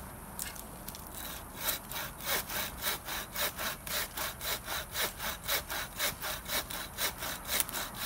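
Wooden-framed bow saw cutting through a fallen pine branch, in steady back-and-forth strokes about three a second, starting about a second and a half in.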